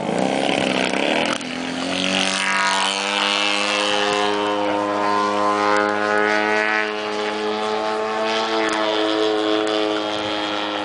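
Radio-controlled model airplane engine and propeller running as the plane flies over the field: a steady, even-pitched drone that comes in about two seconds in, after a short rush of noise.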